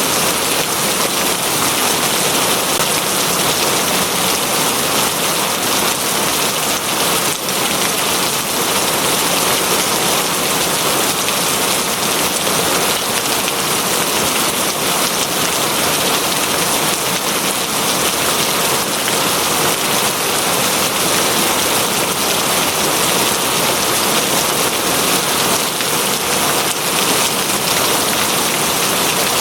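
Steady, heavy rain falling and pattering on a surface, an even dense hiss.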